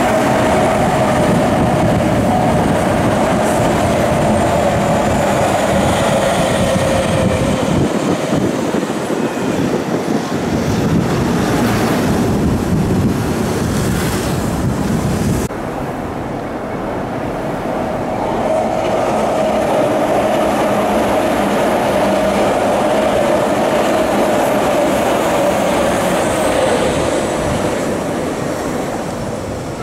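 Tokyu Toyoko Line electric commuter trains running past on an elevated viaduct, making a steady rolling noise with a mid-pitched whine over it for the first several seconds and again through the second half. The level drops suddenly about halfway through, where one passing gives way to another.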